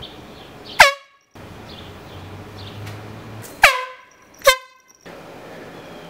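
Air horn blasted three times in short, loud bursts, the last two less than a second apart; each blast dips quickly in pitch as it starts, then holds one steady tone.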